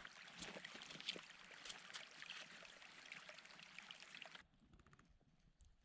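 Faint running water of a stream, an even hiss with small ticks, which cuts off abruptly about four and a half seconds in, leaving near silence.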